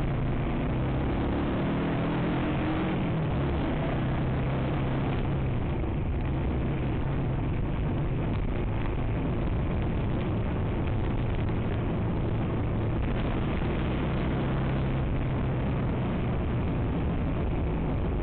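Yamaha XTZ125's single-cylinder engine running while the bike is ridden, picking up speed over the first few seconds and then holding a steady pace, under a steady rush of wind noise on the microphone.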